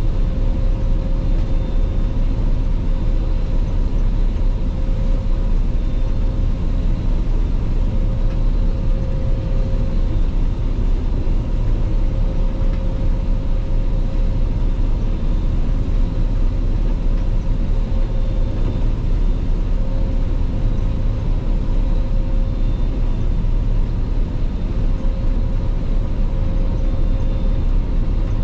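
Claas Lexion 480 combine harvester running steadily while harvesting rapeseed: a loud, even rumble with a few steady whining tones over it.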